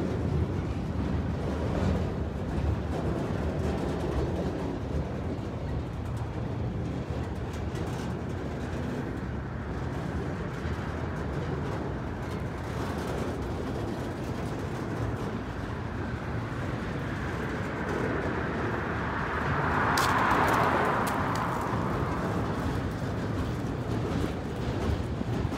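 Loaded autorack cars of a long freight train rolling past, a steady low rumble of steel wheels on rail, with a brief louder rushing swell about twenty seconds in.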